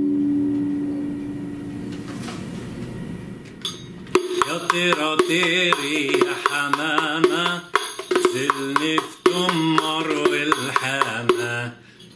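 A riq's jingles ring on and fade over the first few seconds after a strike; about four seconds in, a man starts singing, accompanied by sharp strikes on the riq.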